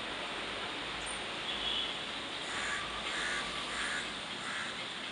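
A bird calling about four times in quick succession, starting about halfway through, over a steady background hiss.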